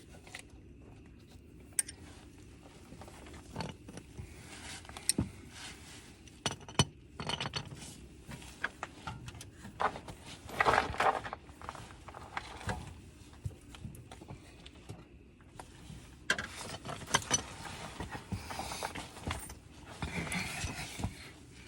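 A 12 mm wrench working the bolts tight: irregular metal clicks, taps and short scrapes, busier about halfway through and again near the end.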